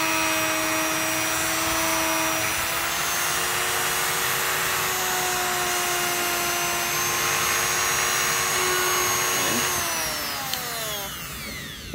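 Dremel Multi rotary tool running at high speed with a brush attachment scrubbing rust off metal: a steady whine over a scratchy hiss. About ten seconds in it is switched off and the whine falls in pitch as it spins down.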